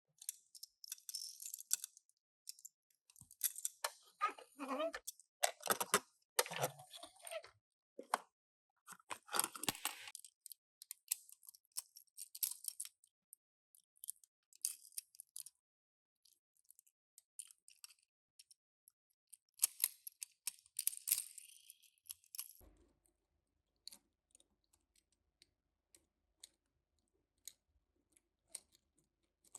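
Toy packaging being handled and opened: irregular bursts of crinkling and rustling, with small clicks and taps in between. The crinkling comes in bunches in the first ten seconds and again around twenty seconds in.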